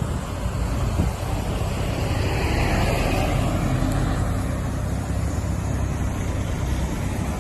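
Suzuki Jimny on the move, its engine and road noise steady, swelling a little about two seconds in.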